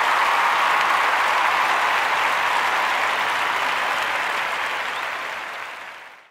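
Applause from a large crowd, a steady even clapping that fades out over the last second and stops.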